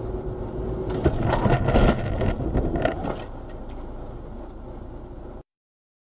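Car crash heard from inside the cabin on a dashcam. Steady road and engine noise gives way, about a second in, to a run of hard knocks and clattering impacts lasting a couple of seconds. The noise then dies down and cuts off abruptly near the end.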